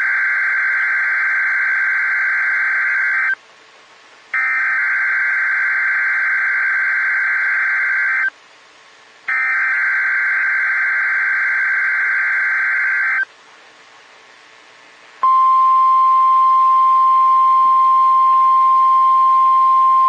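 NOAA Weather Radio Required Weekly Test tones. Three buzzy, warbling SAME digital header bursts of about four seconds each, about a second apart. About fifteen seconds in, the steady 1050 Hz warning alarm tone starts and holds.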